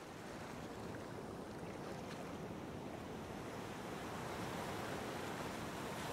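Steady rushing of ocean surf, even and unbroken, building slightly over the first second.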